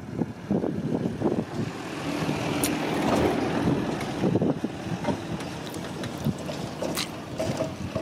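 Wind buffeting the microphone: an uneven, gusting low rumble with a few faint clicks.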